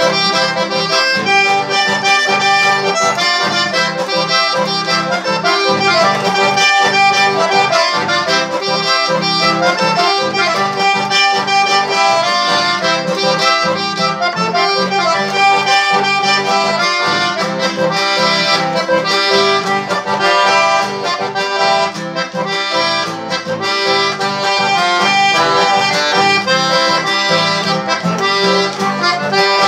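A button accordion plays a melody over a strummed acoustic guitar accompaniment, in a steady rhythm without a break.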